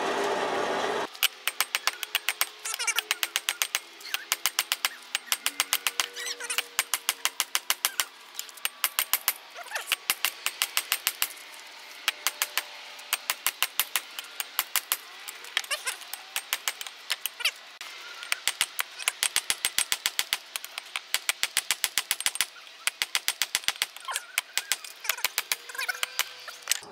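Hand hammer striking hot leaf-spring steel on a small steel block anvil: runs of sharp blows, about three a second, with short pauses between runs. The first second is a bandsaw running.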